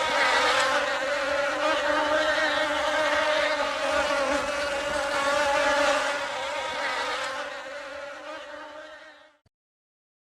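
Flying insect buzzing in one steady, even-pitched hum, which fades over the last few seconds and cuts off about nine seconds in.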